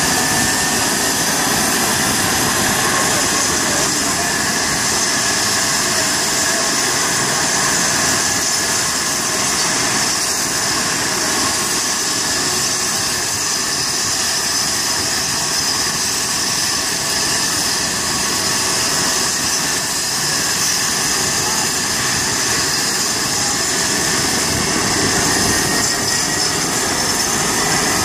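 Rescue helicopter running on the ground ahead of takeoff: a steady turbine whine over the even rush of the turning rotor.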